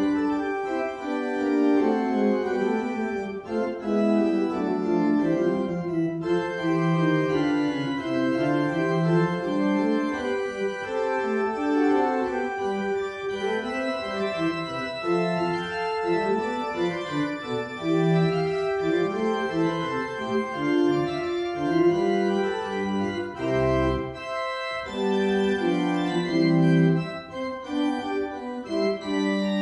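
Organ playing a fugue in C: several voices moving against each other in sustained, overlapping notes, with a moving bass line and a brief break with a short low note a little over two thirds of the way through.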